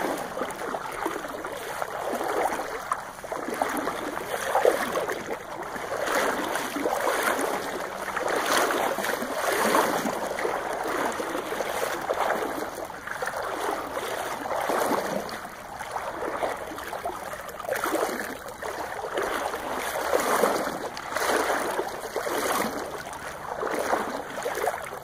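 River water sloshing and splashing in irregular surges that rise and fall every second or two.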